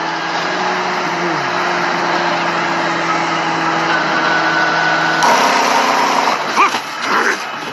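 Mack truck diesel engine running with a steady low hum; about five seconds in the sound turns louder and rougher.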